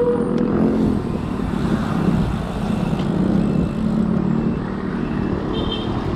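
Road traffic: a motor vehicle's engine running close by with a wavering hum, over a steady low rumble of wind and road noise on the microphone.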